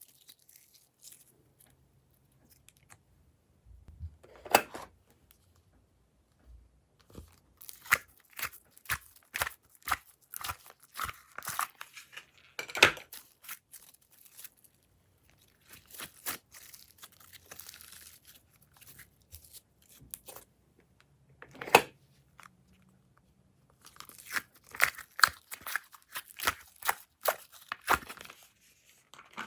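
Glossy slime being squished and stretched by hand, giving runs of sticky clicks and crackling pops. There are a couple of louder single pops and quiet gaps between.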